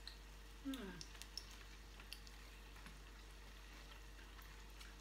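Near silence with faint small clicks of a person eating fried squash fritters and picking more off a plate. One short falling murmur from the eater about a second in.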